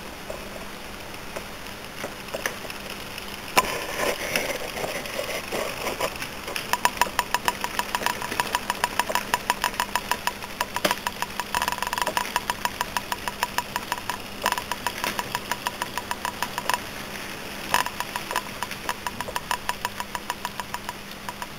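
Model electric train running on the layout track: a fast, even clicking of its wheels over the rail joints starts about six seconds in and runs on, after a single sharp click a few seconds earlier. A steady low hum lies underneath.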